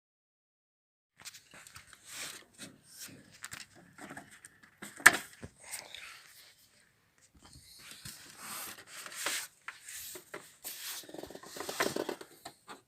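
Plastic casing of an HP LaserJet P1108 laser printer being handled and taken apart by hand: irregular clicks, scrapes and rubbing, with one sharp click about five seconds in.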